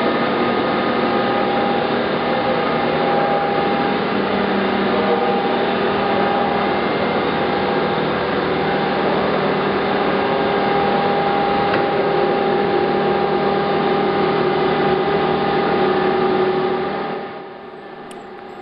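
SMTW H-163 cylindrical grinder running: a steady mechanical hum with several constant tones. The sound drops off sharply near the end.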